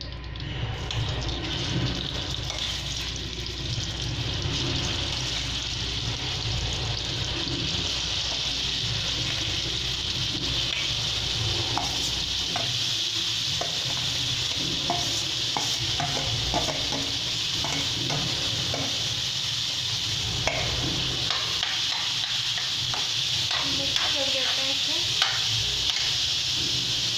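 Grated carrots frying in hot ghee in a steel kadhai: a steady sizzle, with a steel spatula scraping and clicking against the pan as the carrots are stirred, the clicks coming more often in the second half.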